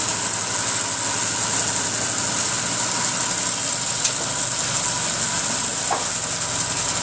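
Yates Y30 bandsaw running steadily, a constant mechanical noise with a thin high-pitched whine over it.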